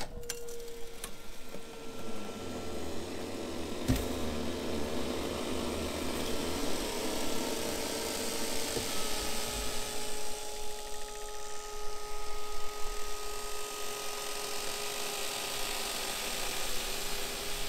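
Electric lift motor of an ice-fishing wheelhouse running steadily as it raises the trailer off the ice, a constant whine that drops slightly in pitch about halfway through. A single sharp knock about four seconds in.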